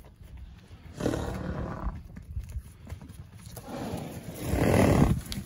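A herd of horses moving past on grass, with two swelling stretches of rustling noise, the second and louder one about four seconds in.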